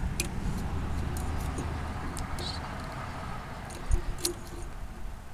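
A few light clicks and taps of meter test probes on transistor leads, the strongest about four seconds in, over a low steady hum that fades after about three seconds.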